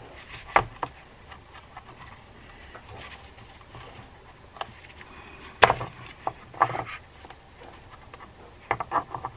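Small metal reel parts being handled: the main gear being fitted over the gear sleeve and its plastic shim washer, giving scattered light clicks and taps, the sharpest about half a second in and a little before the middle.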